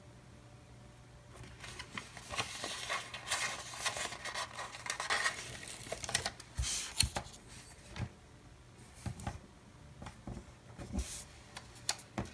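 Paper handling: the planner's pages and a sticker sheet rustling and crinkling for a few seconds, then scattered light taps and ticks of fingers and paper against the desk.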